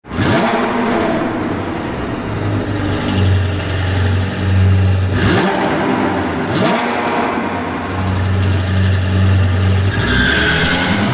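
Car engine fitted with a turbo whistle, idling and blipped twice in quick rising revs, with a high whistle sounding near the end as the revs fall away.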